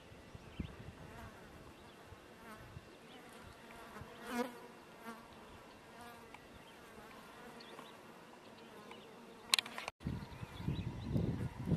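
A flying insect buzzing close by, its hum swelling and fading about four seconds in, with fainter buzzes around it. Near the end there is a sharp click and a brief break in the sound, then a low rumbling noise.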